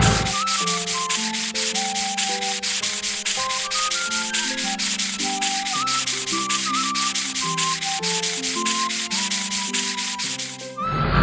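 Rhythmic scrubbing of a car-wash brush rubbing over a truck's body, about five strokes a second, over a light background melody.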